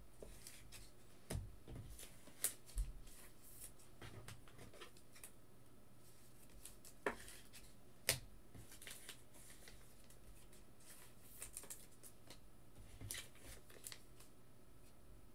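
Light handling noises: sparse, faint clicks and taps with soft rustling, as trading cards in plastic holders are moved about on a desk.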